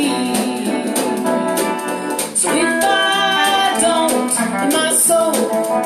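Live band playing a blues song, with bass, drums and guitar under a singing voice.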